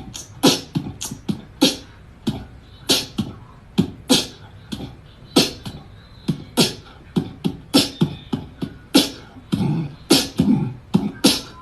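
A beat of short percussive hits, alternating low thumps and sharp snaps about two to three times a second, like beatboxing.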